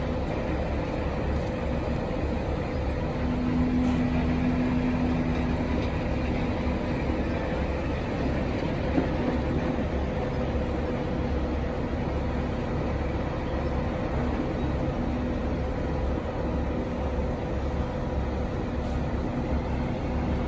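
Heavy diesel engine of a mobile crane running steadily as it hoists a load, with a steady mechanical hum over the rumble that grows stronger a few seconds in and again near the end.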